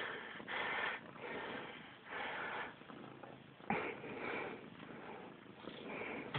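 Scuffling of a cat wrestling and rabbit-kicking at a hand on bedding: bursts of rustling about every one and a half to two seconds, with one sharp knock a little past halfway.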